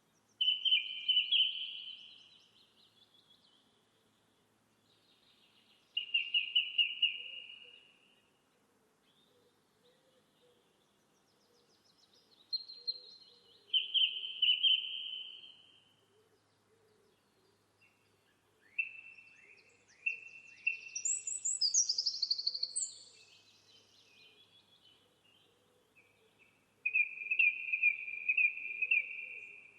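A songbird singing short phrases of fast repeated notes, one every few seconds, with a higher, more complex phrase around the middle, over a faint steady outdoor background.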